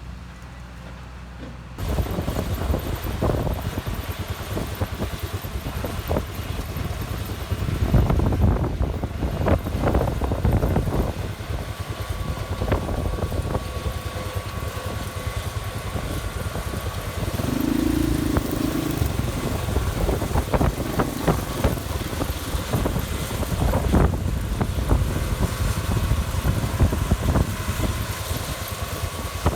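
Heavy farm machinery running: a steady engine drone with frequent knocks and rattles. The sound jumps louder about two seconds in.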